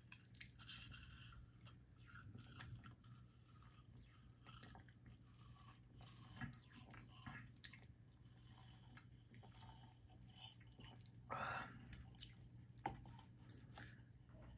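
Faint mouth sounds of a person sipping and tasting sparkling water from a can: scattered small wet clicks and lip smacks over a low steady hum, with one louder noisy sound about eleven seconds in.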